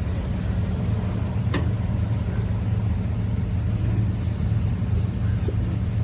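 A steady low mechanical hum in the background, with a sharp click about one and a half seconds in and a fainter one near the end.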